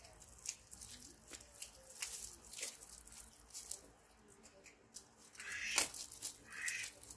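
Crinkling and tearing of a small plastic packet being handled, in a run of short crackles, with a few louder rasping sounds in the last two seconds.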